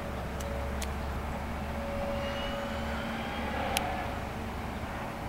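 Low, steady outdoor droning hum with a faint steady higher tone over it and a couple of small clicks. It is the unexplained drone that the recorder takes for a strange noise coming from the sky to the southeast.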